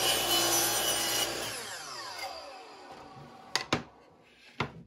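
Power miter saw cutting through a piece of white crown molding, then the blade spinning down with a falling whine over about two seconds. A few sharp knocks come near the end.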